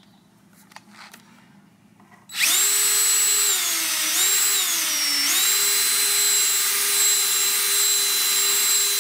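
Cordless drill motor whining at speed as the bit enlarges a hole in the car's sheet-metal deck lid to fit a rivnut. It starts about two and a half seconds in, and its pitch sags twice under load as the bit bites before settling at a steady full speed.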